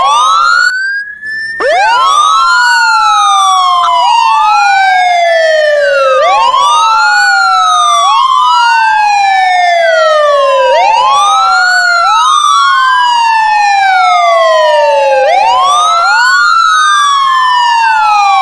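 Ambulance siren wailing. The pitch sweeps up quickly and then falls slowly, repeating about every two seconds. It drops out briefly about a second in, then restarts with a fresh rise.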